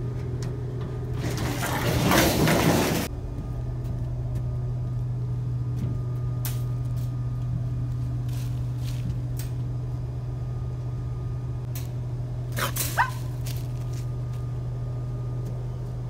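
Pickup truck engine idling with a steady low hum. About a second in, a loud rustling, scraping noise lasts about two seconds, and near the end there is a short squeak that falls in pitch.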